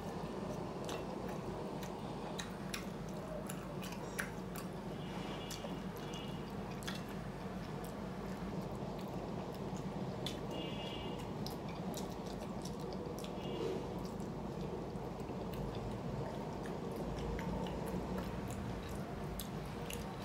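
Close chewing and mouth sounds of a person eating rice and fish, with many small wet clicks scattered through, over a steady background hum.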